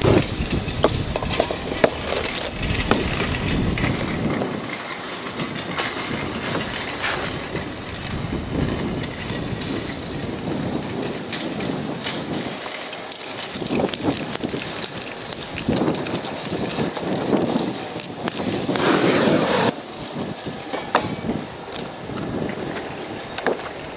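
Spray-paint work on a canvas: a burst of flame from a spray can lit into a torch at the start, then the rustle and crackle of paper sheets pressed onto and peeled off the wet paint, with a louder burst of rustling about nineteen seconds in.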